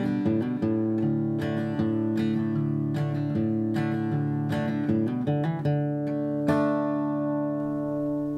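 Background music on acoustic guitar, picked notes in a steady run that ends on a chord about two-thirds of the way through, left to ring.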